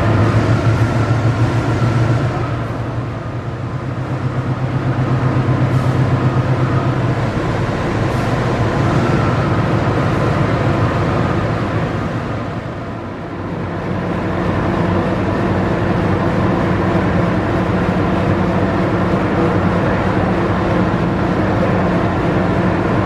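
Diesel engines of a passenger train standing at the platform, idling: a steady low drone that dips and shifts to a slightly higher pitch about thirteen seconds in.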